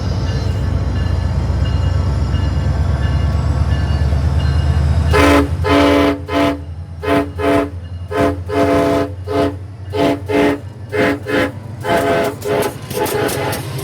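SunRail locomotive's multi-chime air horn: after about five seconds of the train's low rumble, it sounds one long blast, then a rapid string of short toots, roughly two a second, played as a horn show.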